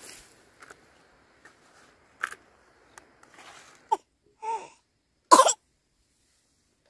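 A person coughing: one sharp, loud cough about five seconds in, after a couple of small clicks and knocks and a short breathy sound.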